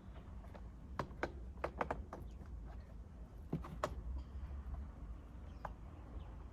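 Scattered sharp clicks and taps of hard plastic on a Suzuki Swift's door trim and fittings being worked back into place, a quick cluster about a second in, two more near four seconds and a last one later.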